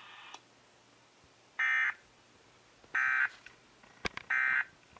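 Emergency Alert System end-of-message data burst: three short bursts of warbling digital tones, about a second and a half apart, marking the end of the tornado warning broadcast.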